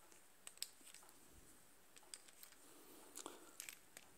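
Faint, scattered clicks of revolver cartridges being put into a twist-knob speed loader: a couple about half a second in, and a cluster about three seconds in.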